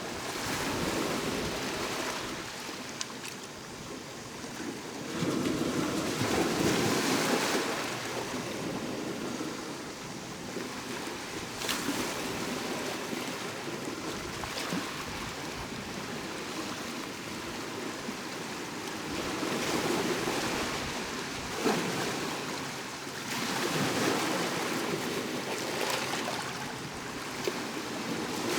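Sea waves washing onto the shore, the surf swelling into louder surges every several seconds and easing back between them.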